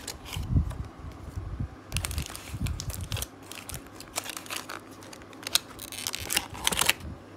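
Aluminium foil takeaway trays being opened: the foil-lined lids are pried up and bent back, crinkling and crackling in repeated bursts. A few dull low thumps come in the first three seconds.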